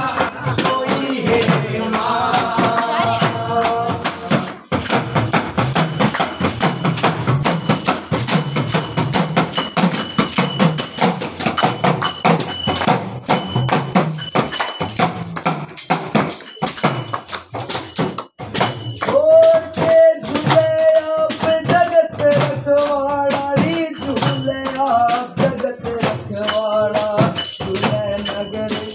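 Group of voices singing a Hindu devotional bhajan to the goddess Durga over fast, steady jingling hand percussion. The singing drops back for a long stretch after about four seconds, leaving mostly the percussion, and comes in strongly again about two-thirds of the way through.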